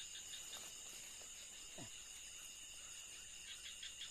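Night insect chorus: a steady high-pitched trilling from crickets and other insects, with a few short pulsed chirps near the start and again near the end. A faint, brief falling low sound about two seconds in.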